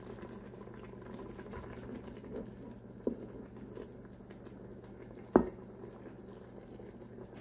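A metal ladle scooping hot pinto beans and broth from an Instant Pot's nonstick inner pot into a bowl: soft liquid slopping, with a light knock about three seconds in and a sharper knock of the ladle about five seconds in, over a steady low hum.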